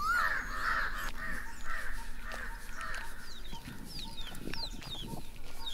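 Crows cawing repeatedly, harsh calls about two a second, in an outdoor ambience. In the second half a smaller bird gives thin, falling chirps.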